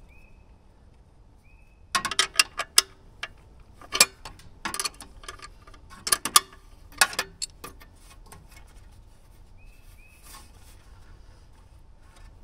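A hand wrench clicking and clinking irregularly against metal fittings on the top of a small diesel tractor engine, as nuts are worked loose, in a busy run of sharp clicks from about two seconds in until about seven and a half seconds in.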